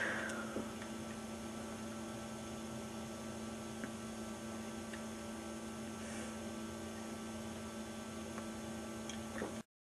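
Steady electrical hum with a few faint clicks. It cuts off abruptly near the end.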